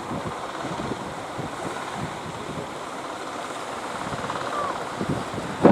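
Wind buffeting the microphone over a steady rush of surf, with a louder gust just before the end.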